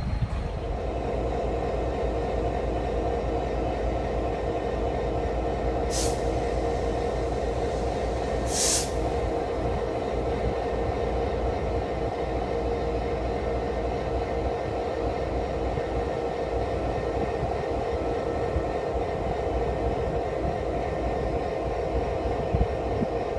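Canadian Pacific diesel locomotives running with a steady, deep engine drone, with two short hisses about six and nine seconds in.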